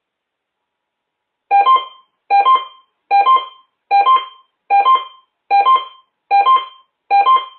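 Electronic two-note chime, a lower note then a higher one, repeated about every 0.8 s and starting about a second and a half in, eight times in all. It is the attention chime that opens a broadcast station's Emergency Alert System monthly test.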